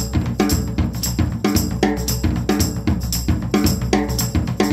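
Background music with a steady drum-kit beat of bass drum and snare over held bass notes.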